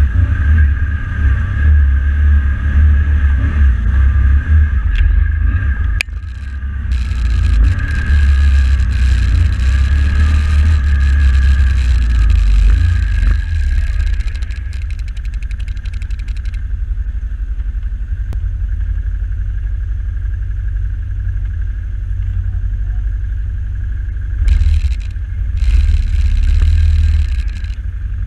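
Can-Am XMR 1000R ATV's V-twin engine running as it is ridden along a muddy trail, with a heavy low rumble and a steady high whine. A hiss comes in about seven seconds in and lasts some ten seconds, and comes back briefly near the end.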